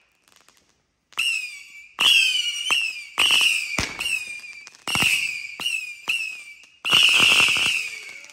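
Weco 'Lord of Whistle' howler-battery firework cake firing a rapid series of whistling shots: each a sharp launch crack followed by a shrill whistle that drops slightly in pitch and fades. After a short silent gap at the start, about ten shots follow in quick succession, several overlapping about seven seconds in.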